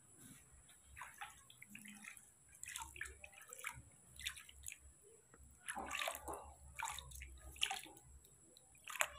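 Water splashing and dripping in a plastic basin as a hand scoops it up and pours it back over a baby monkey being bathed. The splashes and trickles come irregularly, with a louder splash near the end.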